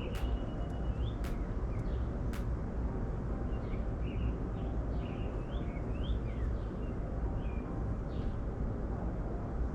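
Birds chirping in short, repeated rising and falling calls over a steady low rumble, with a few sharp clicks in the first couple of seconds.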